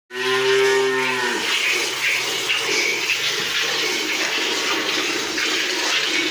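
A cow moos once for about a second at the start, the call dropping in pitch as it ends. After that comes a steady hiss of milk streams squirting into a pail as the cow is milked by hand.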